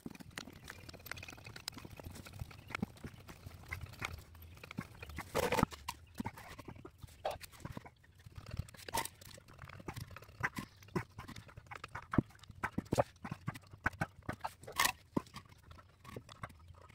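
Irregular wooden knocks and clunks as cut wooden blocks are set down and stacked, and a hydraulic bottle jack placed under a skid steer's frame.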